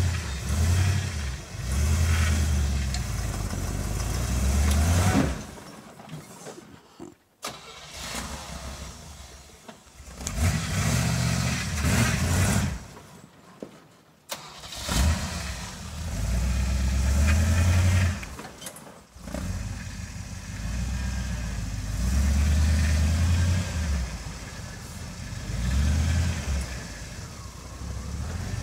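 Jeep CJ5 engine crawling over rocks: low rumble that swells with short bursts of throttle and eases off between them, again and again. Twice, about a quarter and about halfway through, the engine sound falls away almost to nothing for a second or two before picking up again.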